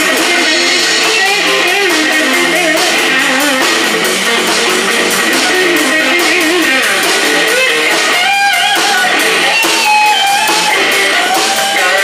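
Live blues band playing: an electric guitar lead with wavering, bent notes over bass guitar and drums keeping a steady cymbal beat.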